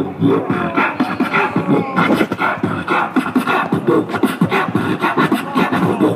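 Human beatboxing into a handheld microphone: a fast, unbroken run of vocal drum sounds mixed with pitched, gliding tones.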